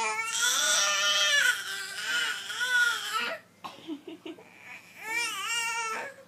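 Baby crying: one long, wavering cry lasting about three seconds, then after a short pause with a few faint sounds, a second, shorter cry near the end.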